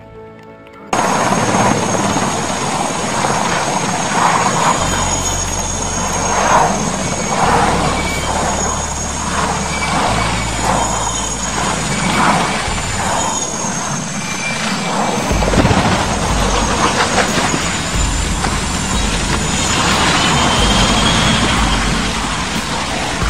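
Helicopter running loud and rough, its rotor beating, as it goes down in a crash; the sound starts suddenly about a second in.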